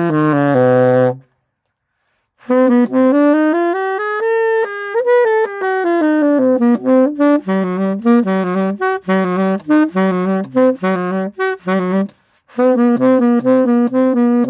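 Unaccompanied saxophone playing an audition piece. A quick run of notes stops about a second in, and after a pause of about a second the line resumes with a slow swell up and back down in pitch. It then moves into a string of short, detached notes, with another brief break near the end.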